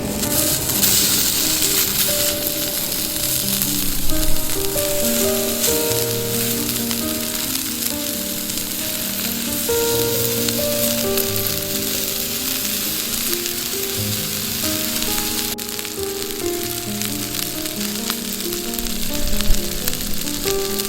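Food sizzling in a frying pan, a steady hiss, over soft background music with slow held notes.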